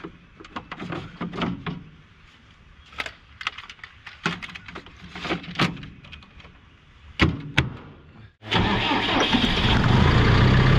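Clicks, knocks and clunks of an air filter being refitted and the engine-compartment panel of a Cat D5 dozer being handled and shut, with two sharper clacks about seven seconds in. About eight seconds in, the dozer's diesel engine is suddenly heard running loudly and steadily.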